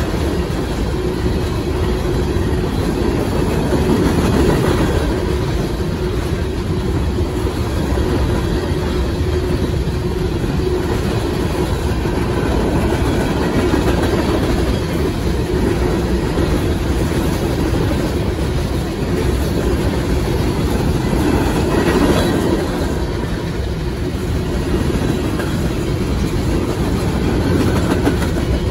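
Freight train of covered hopper cars rolling past close by at speed: steel wheels running on the rails in a steady, loud noise.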